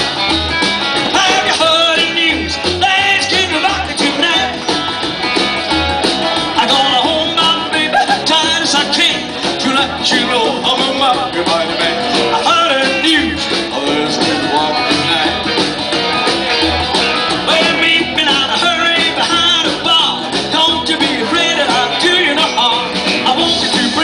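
Live rockabilly band playing a song on upright double bass, acoustic guitar and electric guitar.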